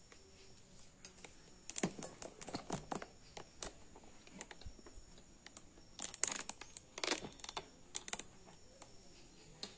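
Handling noise from a phone being repositioned over a table with cloth: scattered irregular taps, clicks and light rustles.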